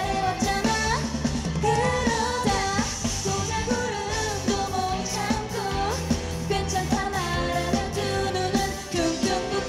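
A live pop-rock band performance: a woman sings a Korean-language melody over electric keyboard and drums, with the drum beat steady throughout.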